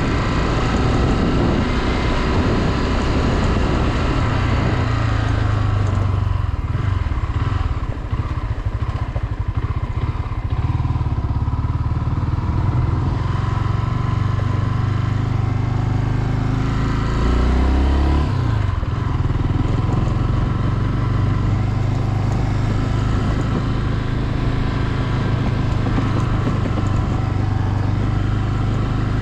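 Honda CB Twister 250F motorcycle's single-cylinder engine running under way while riding. About seventeen seconds in, the revs climb and then fall off sharply.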